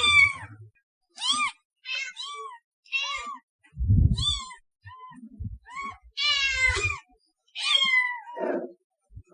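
Cat meowing: a run of about a dozen short, high, arched meows in quick succession, a few of them longer and more drawn out, with some low thuds or rumbles in between.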